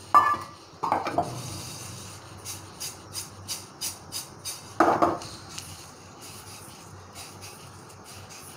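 Freshly dry-roasted sesame seeds swishing and rattling in a metal kadai as the pan is shaken and the seeds stirred, with a few sharp knocks of metal on the pan. In the middle the seeds rustle in a soft rhythm of about three strokes a second.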